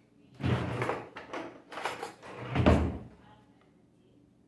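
Handling noise at a kitchen counter: a flour package and plastic containers being moved and opened, several rustles and knocks over about two and a half seconds, the last the loudest.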